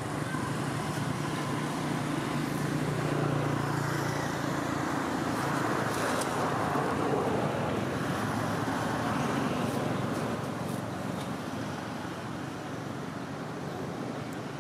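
Motor vehicle engine running nearby, a steady hum and rush that grows louder toward the middle and eases off near the end.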